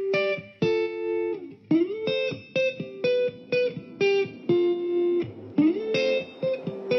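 Background music: a guitar melody of short plucked notes, with a note sliding upward twice.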